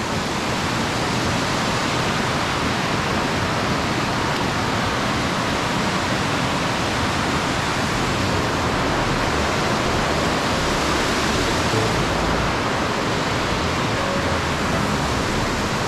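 Rushing water of a gorge creek and its falls, a loud steady noise with no let-up.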